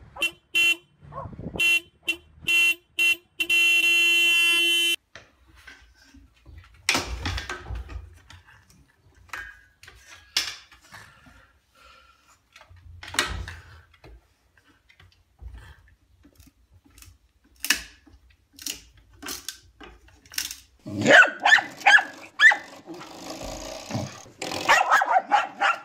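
An SUV's car horn, set off by a dog sitting at the steering wheel, gives a string of short honks and then one long blast of about a second and a half. Scattered knocks follow, and a dog barks repeatedly near the end.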